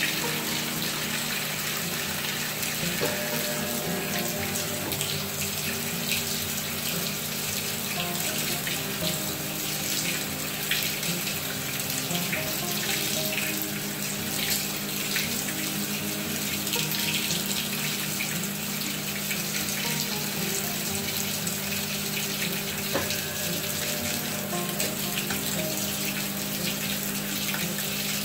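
Maytag top-load washer filling: a steady rush of water pouring into the tub, over a low hum.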